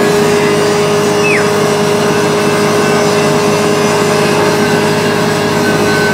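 Belt-driven disc machine running steadily on its electric motor: an even, constant mechanical hum with a steady tone, no change in speed.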